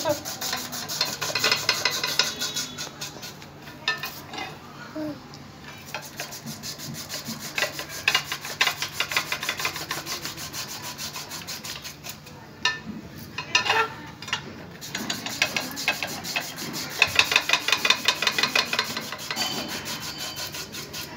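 Hand-cranked rotary potato chips slicer: a peeled potato pressed into the hopper is shaved into thin chips by the turning disc's stainless-steel blades, a rapid rasping scrape. It comes in several bursts as each potato is fed through, with quieter gaps between them.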